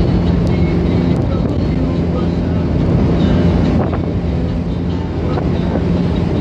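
Car engine and tyre noise heard from inside the cabin while driving on an open road: a steady, even drone.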